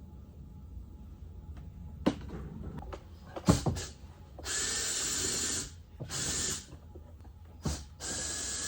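A few sharp clicks and knocks, then a cordless power screwdriver runs in three short spurts with a faint steady whine, backing out the screws that hold the door trim covers.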